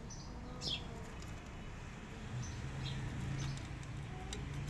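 Cat crunching dry kibble from a bowl, with a few sharp clicks near the end. A bird chirps about a second in, and a low steady hum comes in during the second half.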